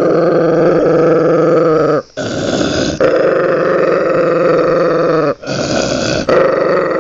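A dog growling: long, loud, rough growls of a couple of seconds each, broken twice by a short rasping breath between them.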